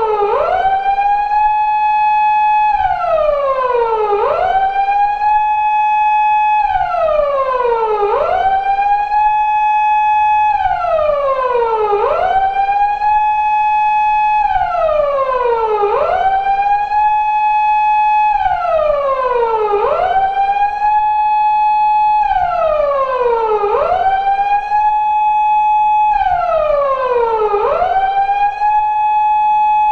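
Japanese police car siren of the 2000s type used on 170- and 180-series Toyota Crown patrol cars, reproduced as a sound effect, wailing in a four-second cycle. Each cycle climbs quickly to a high held tone, then slides back down, repeating about seven times.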